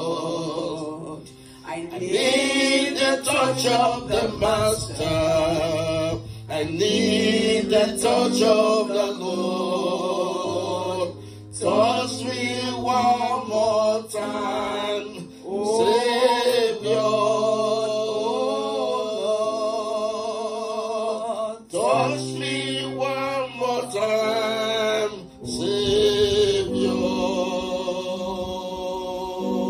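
A woman singing a slow gospel worship song through a microphone and PA, over long held accompaniment chords.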